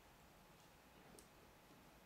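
Near silence with two faint, sharp clicks of plastic Lego pieces being handled during building.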